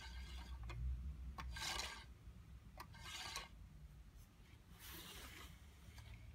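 Plastic toy gear set being handled: four short rasps of plastic rubbing on plastic, with a few light clicks between them.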